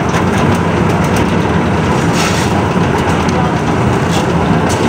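Concrete mixer running steadily while wet concrete pours down its steel chute into a hoist trolley, with a few small clicks over the drone.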